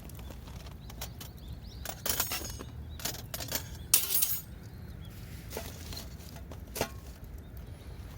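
Small hard objects clinking and knocking against each other a few times, the loudest about four seconds in, over a steady low rumble.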